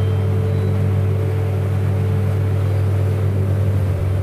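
Fishing boat's engine running steadily under way with a constant low hum, over the rushing wash of the churning wake.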